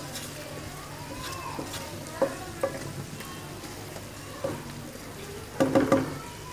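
Chicken pieces and onion masala sizzling in oil in a non-stick wok while being stirred with a wooden spatula. The spatula knocks against the pan a few times, loudest in a quick cluster of knocks near the end.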